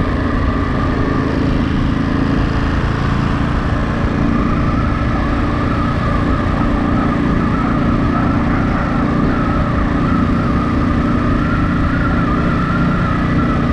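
Ducati Monster 937 motorcycle's L-twin engine running at a steady, unchanging pitch, with a wavering high-pitched tone over it.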